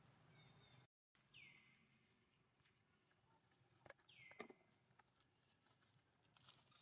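Two faint, short, high-pitched animal calls, each sliding down in pitch and then holding briefly, about three seconds apart, with a few faint clicks.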